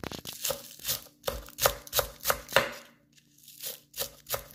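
Chef's knife slicing green onions on a wooden end-grain cutting board: quick cuts, each ending in a knock of the blade on the wood, about three a second, with a short break a little after halfway.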